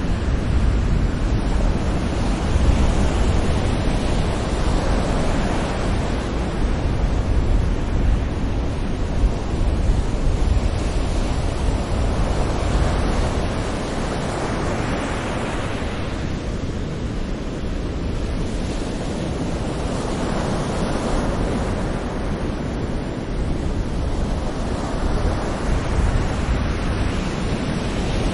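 Gentle sea waves breaking on a beach shore, a continuous wash of surf that swells and ebbs every few seconds, with a steady low rumble beneath.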